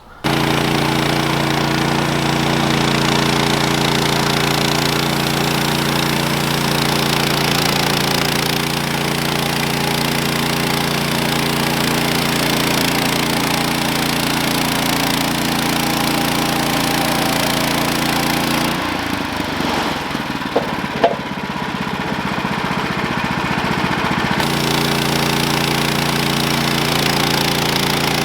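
Portable band sawmill's small gasoline engine running steadily at high speed. From a little past the middle, for about five seconds, the steady note breaks up and wavers, with a couple of sharp clicks, then it settles back to a steady run.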